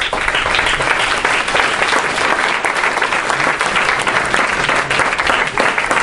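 An audience applauding, many hands clapping at once; it breaks out suddenly and then holds steady.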